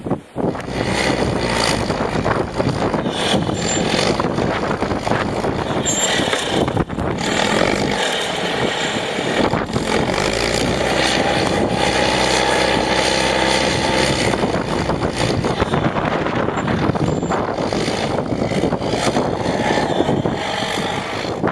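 Storm wind blowing hard and buffeting the microphone in gusts, with a low steady hum in the middle.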